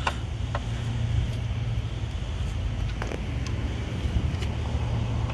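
A few sharp metallic clicks as the wheel nuts are threaded onto the studs by hand, over a steady low hum.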